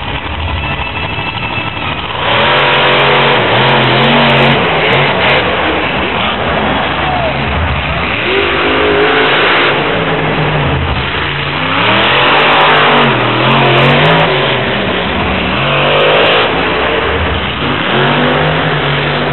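Monster truck engines revving hard, their pitch rising and falling again and again; the first couple of seconds are a lower, steadier running before the loud revving starts.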